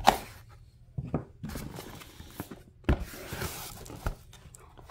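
Cardboard box being opened and handled by hand: several sharp knocks of the box and its lid, with rubbing and a short rustle of cardboard and foam about three seconds in.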